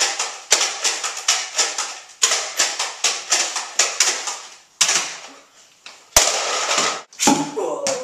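Toy foam-dart blasters being fired, a rapid series of sharp snaps several a second for about five seconds, with a louder noisy burst about six seconds in.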